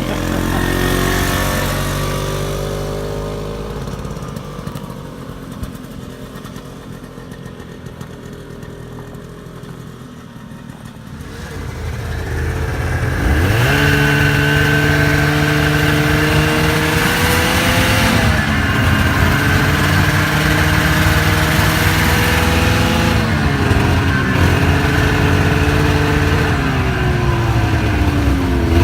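Vintage two-stroke snowmobile engines. One fades away over the first few seconds. About twelve seconds in, an engine comes up loud with a quick rise in pitch and runs at speed, its pitch climbing and dipping with the throttle.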